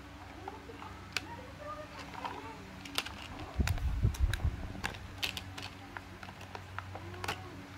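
Hard plastic clicking and tapping as a toy car-transporter truck and its small plastic police cars are handled, with irregular sharp clicks throughout and a low rumble of handling about three and a half to four and a half seconds in.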